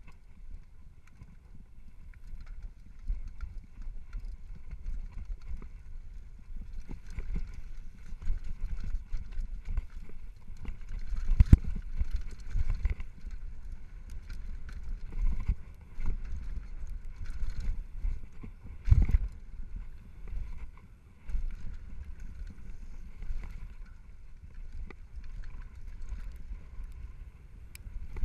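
Downhill mountain bike riding down a rough dirt trail: a continuous rattle and rumble from the knobby tyres, chain and suspension, with frequent short knocks over bumps. The hardest knocks come about eleven and again about nineteen seconds in.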